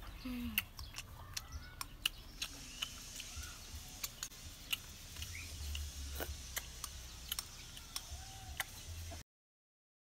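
A metal spoon clicking against a small bowl during eating, with scattered sharp taps and a few faint chirps. The sound cuts off abruptly about a second before the end.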